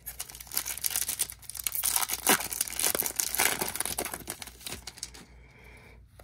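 Foil wrapper of a Topps baseball card pack being torn open and crinkled by hand: a dense crackling rustle, loudest in the middle, that dies away about five seconds in.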